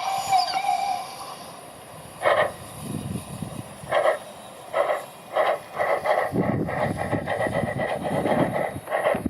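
Steam locomotive starting off, its exhaust chuffs spaced well apart at first and coming faster, running together in the last few seconds. A brief steady tone sounds in the first second.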